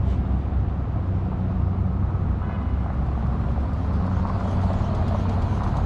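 Steady low rumble of a road vehicle.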